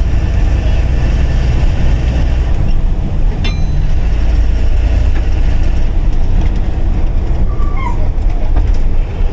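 Leyland bus's diesel engine running with road noise inside the cab, a steady low rumble whose note changes about two and a half seconds in.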